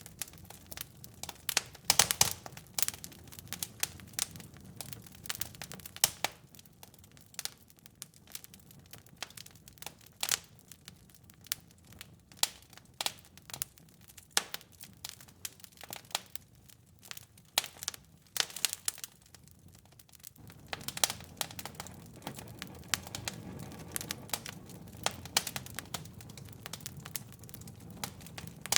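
Fire in a fireplace crackling, with irregular sharp pops and snaps over a low steady hiss; the hiss grows fuller about two-thirds of the way through.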